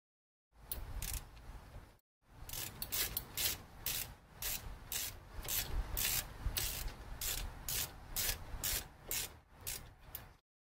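Hand ratchet wrench clicking through a run of quick back-and-forth strokes while tightening bolts, starting about half a second in and stopping abruptly near the end.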